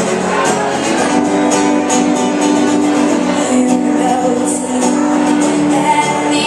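A song performed on strummed acoustic guitar with a young girl singing over it, holding long notes.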